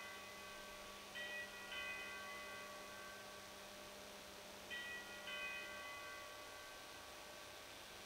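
Consecration bell chiming at the elevation of the host: two rings, about a second in and about five seconds in, each a pair of ringing notes about half a second apart, over a faint steady hum.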